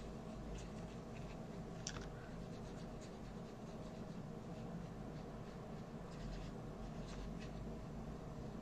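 Faint, soft scratching of a glitter brush pen's tip stroking over the embossed circles of a small cardstock piece, with a few light ticks, over a steady low hum.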